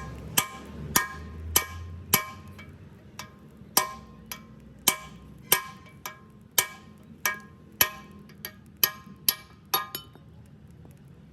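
Repeated hammer blows on steel, each one a sharp ringing clank, coming about twice a second and stopping about ten seconds in.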